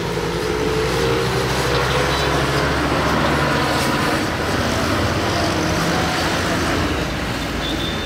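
Road traffic noise, with the steady low rumble of a vehicle engine running close by.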